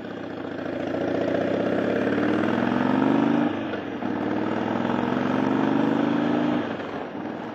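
Motorcycle engine accelerating through the gears: the revs rise steadily, drop sharply at an upshift about three and a half seconds in, rise again, then fall away as the throttle closes near the end.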